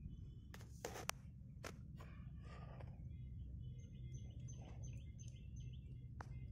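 A few sharp clicks and a short rustle in the first two or three seconds, then small birds chirping in short repeated calls over a steady low rumble, with one more click near the end.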